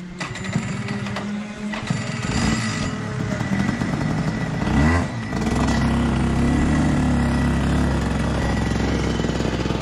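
Kart engine catching about five seconds in, its pitch dipping and rising, then running steadily. Fainter engine noise and a few knocks come before it.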